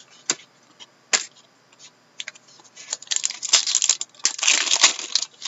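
Sharp clicks of cards being handled, then a 2014-15 Upper Deck Masterpieces hockey card pack being torn open, its wrapper crackling densely for about two seconds.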